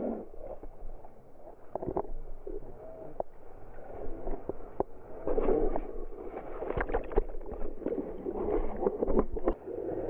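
Ocean water sloshing and splashing around a whitewater kayak in small surf, slowed down, with a flurry of sharp splashes striking the camera housing in the second half as a wave breaks over the bow.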